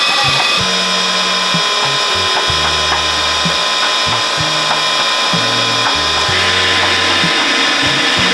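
Background music with a stepping bass line, over a steady mechanical whir.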